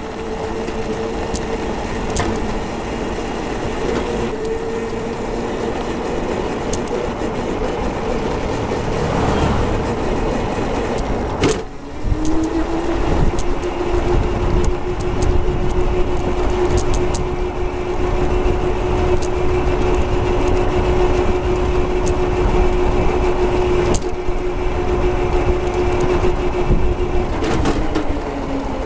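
Electric go-kart's big DC motor whining under a steady rumble as the kart drives. The whine cuts out briefly about a third of the way in, comes back lower in pitch and holds steady, then slides down near the end as the kart slows.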